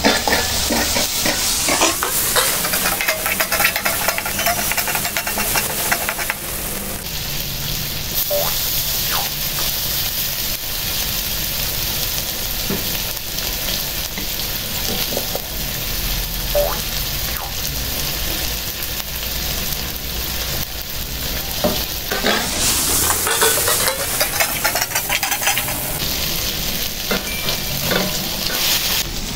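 Leeks and pork frying in a hot steel wok, a steady sizzle, while a perforated metal spatula scrapes and stirs against the pan. The scraping comes in bouts, busiest near the start and again about three quarters of the way through.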